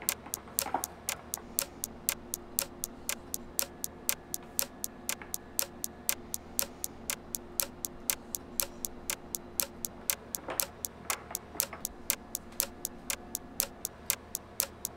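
A clock ticking steadily, about three ticks a second, over a faint steady hum.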